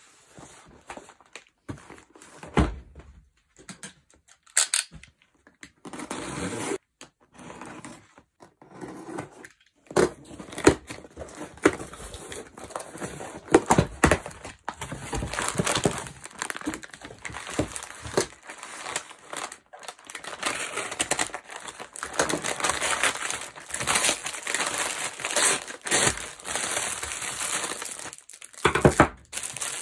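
Unwrapping a parcel by hand: a cardboard box handled and opened, then stiff brown kraft paper crinkled and torn open, with a few sharp knocks in the first ten seconds and a plastic bag rustling near the end.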